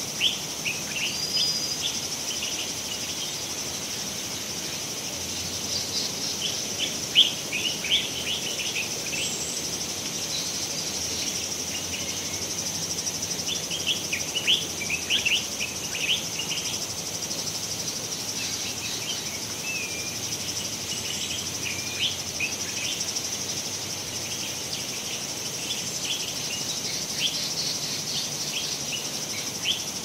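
Dry-season tropical stream ambience: a steady, high-pitched chorus of cicadas with scattered bursts of short chirping bird calls and an occasional brief whistle, over a faint flow of stream water.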